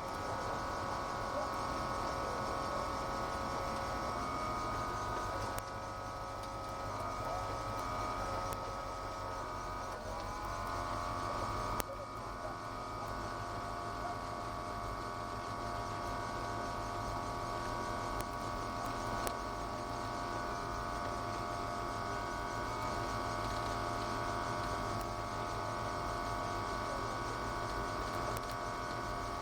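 Ford GT40's V8 engine running at low, steady revs, heard from the cockpit, its pitch shifting about ten to twelve seconds in.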